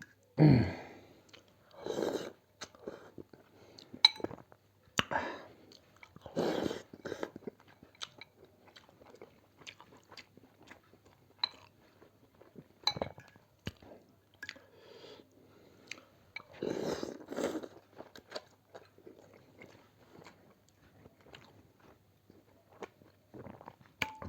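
A person eating chicken thukpa (soup noodles) close to the microphone: chewing and mouth noises in irregular bursts, a few of them louder, with quiet gaps between.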